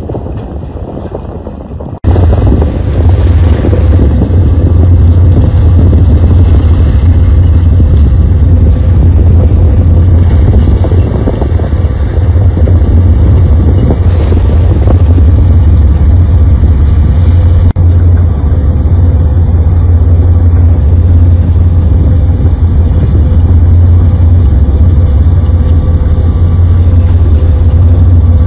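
Boat engine running with wind buffeting the microphone: a loud, steady low drone that jumps sharply louder about two seconds in.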